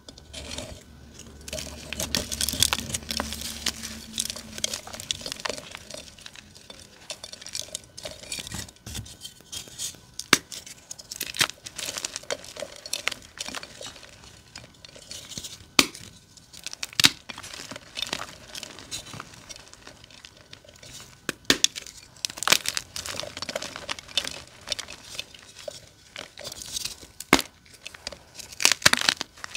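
Blocks of dyed gym chalk crushed and crumbled by hand: dry crunching and crackling as the blocks give way to powder, with sharp snaps scattered throughout as pieces break.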